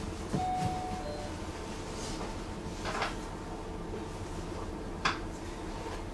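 Tram running, with a steady low rumble and occasional sharp knocks or rattles, twice in the latter half. Near the start a brief two-note tone steps down in pitch.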